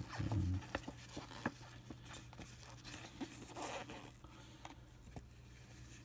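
Glossy paper pages of a printed instruction booklet rustling and sliding as they are handled and turned, with scattered light clicks and taps and a low thump just after the start.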